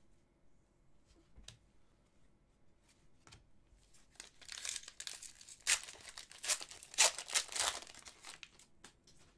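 Wrapper of a hockey card pack being torn open and crinkled. A few faint clicks come first, then about four seconds of tearing and crinkling.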